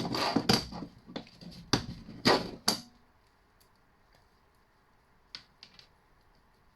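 Copper wire being stripped with a Stanley knife: a run of sharp clicks and scrapes as the blade cuts the insulation and the wire is handled, for about three seconds. Then it goes quiet, with three faint clicks a little past halfway.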